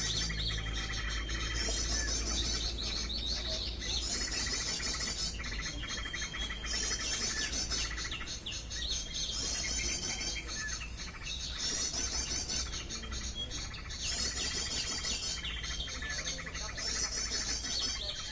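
Recorded bird call played on loop through a loudspeaker as a lure: a high chirping trill repeats about every two seconds, over a steady low hum.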